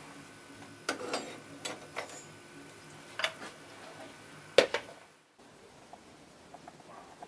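A handful of sharp metallic clinks and knocks from forge tongs and the electric furnace's door, spaced a second or so apart, the loudest just before they stop about five seconds in.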